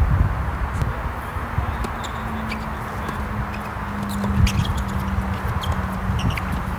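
Doubles tennis rally on a hard court: racquets striking the ball and the ball bouncing, a string of sharp pops at uneven intervals, over a steady low rumble.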